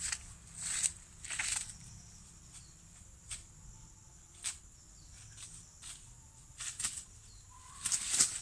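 Irregular rustling and footfalls in grass and dry leaves, loudest near the end, over a steady high insect drone.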